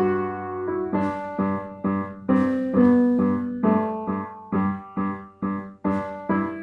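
Piano-like keyboard music: a slow run of single struck notes and chords, each ringing and fading before the next, about two a second.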